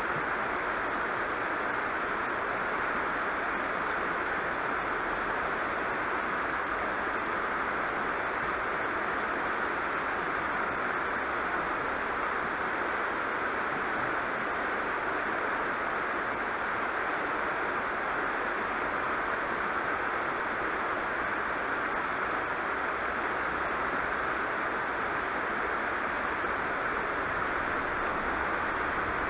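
Shallow river rushing steadily over rocks and riffles.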